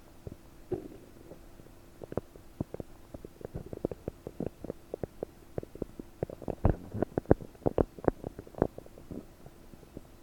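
Bloated stomach and intestines gurgling in quick bubbly pops and clicks, gathering into a dense, louder run a few seconds in and thinning out near the end: gas moving through the gut after eating 30 prunes.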